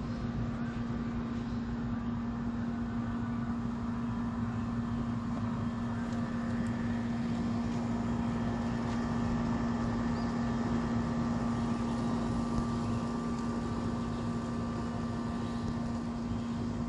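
A steady low hum holding one pitch, with fainter higher tones, over a constant hiss.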